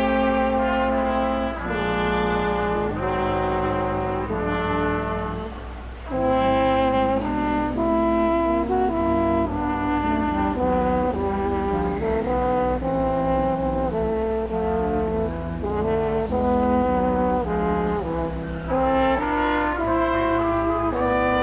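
Brass ensemble playing Christmas music in held chords that change about every second, with a brief softer passage about six seconds in.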